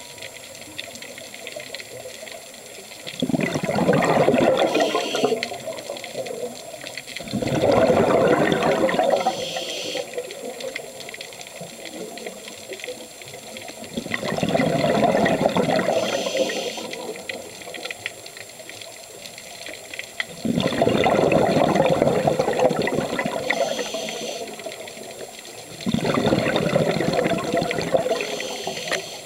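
A scuba diver breathing through a regulator underwater: five loud bubbling bursts of exhaled air, each two to three seconds long, about every five to six seconds, with quieter hiss between them.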